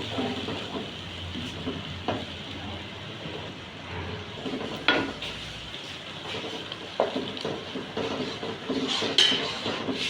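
Food sizzling as it fries in a pan, stirred with a spoon that knocks against the pan about four times.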